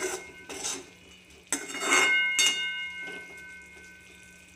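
Metal spatula knocking and scraping against a metal kadai while stirring cubed snake gourd. There are about five strokes in the first two and a half seconds, each leaving the pan ringing briefly, then the pan quiets as the ringing dies away.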